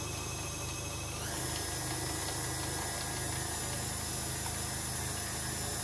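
KitchenAid Classic stand mixer running its pasta roller attachment: a steady motor whir with gear hum and rattle. About a second in, the pitch steps up slightly and the sound gets a little louder.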